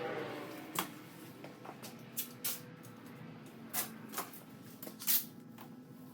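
Scattered sharp clicks and knocks, about a dozen at irregular intervals, like objects being handled and set down, over a faint steady background hum.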